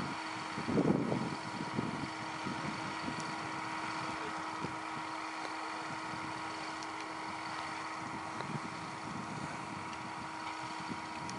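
Rail crane's engine running steadily: a constant drone with a held hum, and a brief louder low rumble about a second in.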